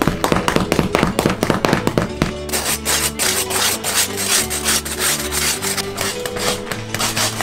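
A knife blade scraping the burnt crust off a large wood-oven-baked loaf in quick rasping strokes, heard over background guitar music. The scraping stands out from about two and a half seconds in.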